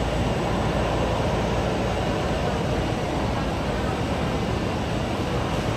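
Jet airliner engines running, a steady rushing rumble that holds an even level throughout.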